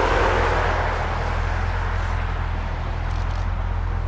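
Jet engines of an Airbus A320 airliner rolling along the runway: a steady rushing roar over a low rumble, slowly fading.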